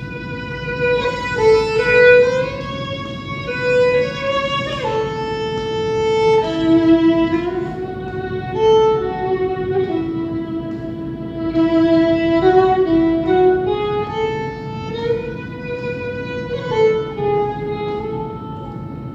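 Solo fiddle playing a slow, pretty melody of held notes that step up and down, the playing trailing off near the end.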